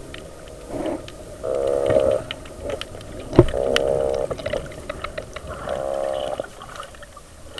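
Meagre (corvina) croaking underwater: three drawn-out, buzzing grunts about two seconds apart, each lasting under a second, the fish's 'snore' made by drumming on its swim bladder. A single sharp click comes a little before the middle.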